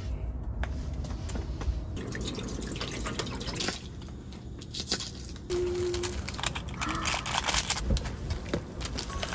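Ramyeon broth bubbling at the boil in a stainless pot on a portable butane stove, with many light clicks and taps of cooking.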